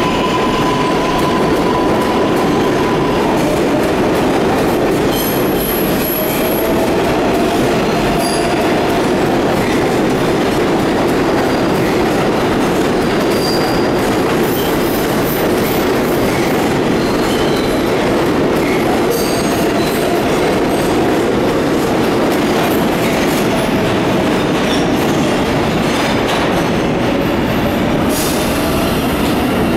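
R142A subway train pulling out and running past along the platform: a steady, loud rumble and clatter of steel wheels on rail. A steady whine sounds in the first few seconds, and short high wheel squeals come and go.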